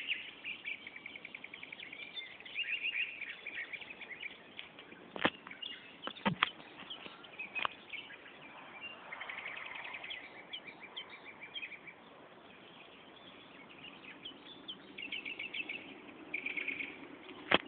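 Small birds chirping and twittering, with quick trilled runs of notes, several overlapping. A few sharp clicks or knocks sound about five to eight seconds in.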